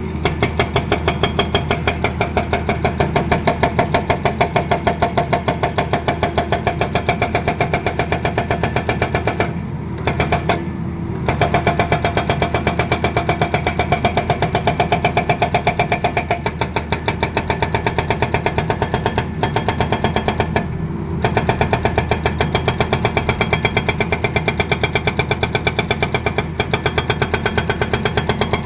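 Hydraulic rock breaker on a Tata Hitachi excavator hammering rock in rapid, evenly spaced blows, with the excavator's diesel engine running underneath. The hammering stops briefly twice about ten seconds in and again about twenty seconds in.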